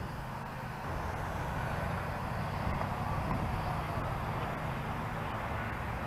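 Strong wind buffeting the microphone: an uneven low rumble under a steady rushing noise.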